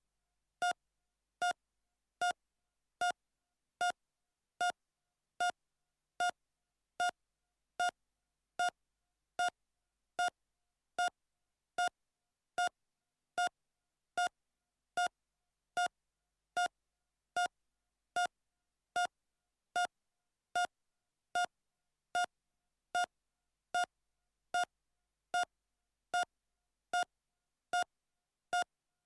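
Heart monitor beeping at a normal, steady rate: one short, identical beep about every 0.8 seconds, roughly 75 a minute.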